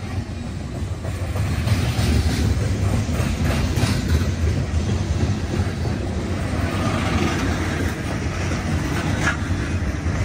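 Norfolk Southern coal train's steel coal cars rolling past close by: a steady low rumble of wheels on rail, with clicks as the wheels cross rail joints.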